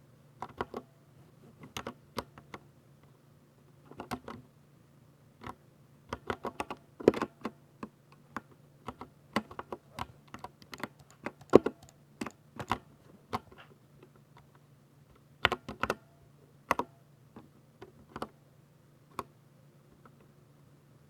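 Typing on a Ducky 60% mechanical keyboard with silver switches: quick keystroke clacks in irregular bursts with short pauses between, a few strokes noticeably louder than the rest. A faint steady low hum sits underneath.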